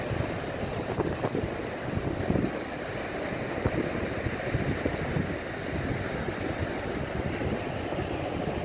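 Surf from a rough, choppy sea breaking and washing up a sandy beach, a steady wash of noise, with irregular gusts of wind buffeting the microphone.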